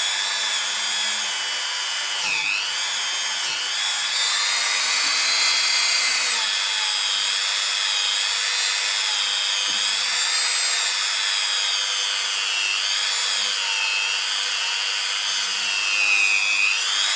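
Dremel rotary tool running at high speed with a cloth polishing tip and polishing cream, polishing corrosion out of a brake caliper's piston bore. It makes a steady high whine whose pitch dips briefly a few times, about two and a half seconds in, around thirteen seconds and near the end.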